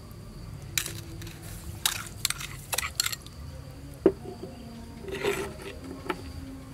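A metal spoon clinking and scraping against a metal pot several times in quick, sharp knocks, with one louder knock about four seconds in.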